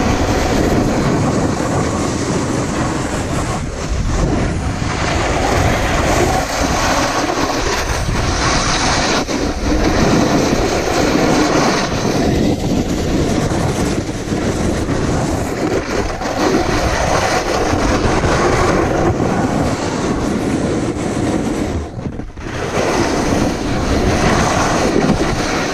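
Snowboard sliding and scraping over firm, icy snow: a loud, steady rushing chatter of the board on the hard surface, dipping briefly near the end.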